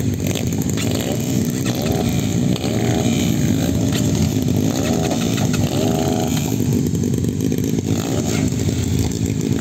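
Several trail motorbike engines running together as they warm up, a loud steady engine noise with short rises and falls in pitch now and then.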